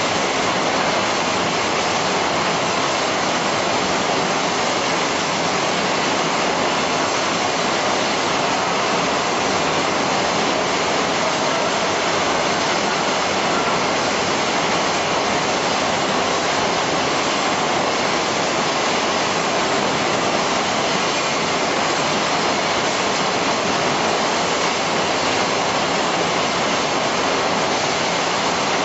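Steady, even noise of running poultry processing line machinery, with no rhythm or change in level.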